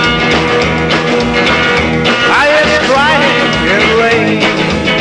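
Rockabilly song in an instrumental passage between vocal lines, with sliding, bending notes about two to three seconds in.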